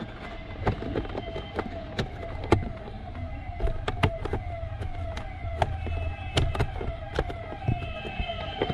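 An electronic siren sounds throughout, its tone sweeping downward about three times a second like a yelp. Over it come scattered sharp clicks and knocks from hands working the plastic fuse-box cover inside a car's glove box.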